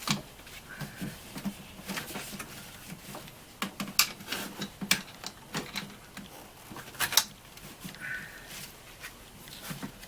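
Irregular clicks and knocks of hands working a rubber hose off the diverter valve of a Ford Focus secondary air injection system, with a few sharper knocks about four and seven seconds in.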